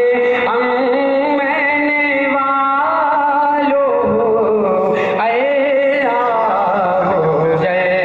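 A man chants an Islamic devotional recitation without accompaniment, amplified through a handheld microphone. He holds long, wavering, ornamented notes, with brief breaths about four and five seconds in.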